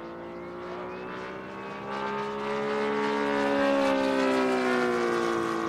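Saito FG-90R3 three-cylinder four-stroke gasoline radial engine of a giant-scale RC model warbird flying past. The engine note grows louder to a peak near four seconds in, then drops in pitch and fades as the plane passes.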